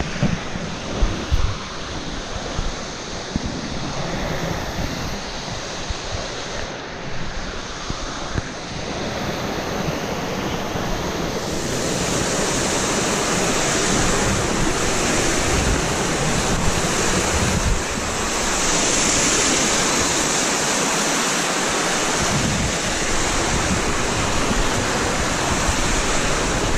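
Berry Creek Falls rushing close by: a steady noise of falling water that grows louder and brighter about halfway through. Low rumble on the phone's microphone sits underneath.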